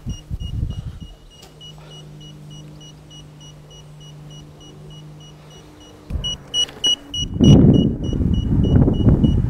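A paper airplane drone's small electric propeller motor gives a faint steady hum in flight. From about six seconds in comes a run of short, high beeps, followed by a loud rumbling noise.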